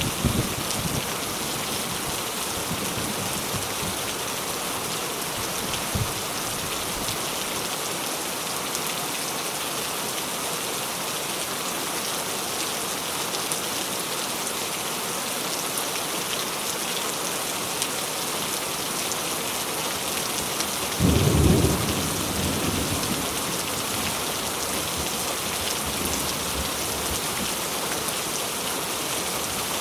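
Steady heavy rain falling, with low thunder rumbling at the start and a louder rumble of thunder about two-thirds of the way through.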